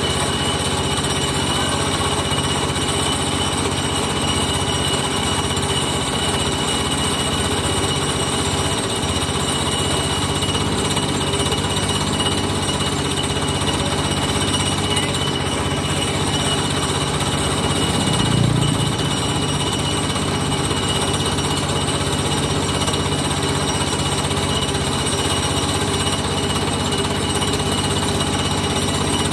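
A motor-driven machine running steadily and continuously, with a rapid hammering character. About two-thirds of the way through there is one brief, louder low thump.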